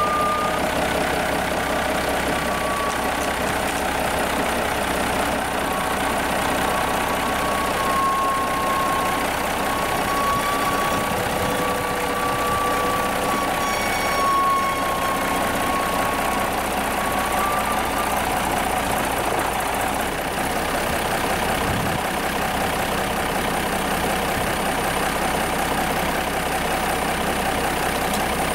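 John Deere 6030 tractor's six-cylinder diesel engine running steadily at low speed under load while it moves a dead forklift. A thin wavering whine rides over the engine for the first two-thirds.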